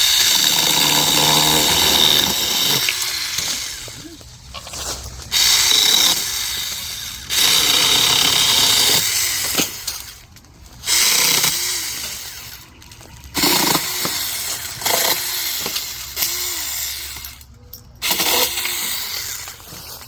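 SMARTSAKER cordless mini electric chainsaw cutting through a Mexican sunflower trunk, its motor whining and the chain biting into the wood. It runs in about six bursts of one to three seconds, stopping and starting between cuts.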